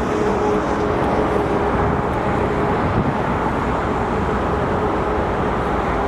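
Steady vehicle and road-traffic noise, an even rumble with a faint steady hum in the first few seconds.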